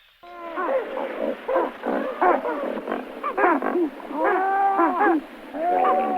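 Several pelicans calling at once: many overlapping short squawks that rise and fall in pitch, with a couple of longer, drawn-out calls near the end.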